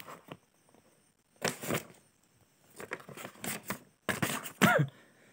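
Paper pages of a textbook being leafed through, rustling in a few short bursts: one about a second and a half in, a longer one around three seconds, and another just after four seconds.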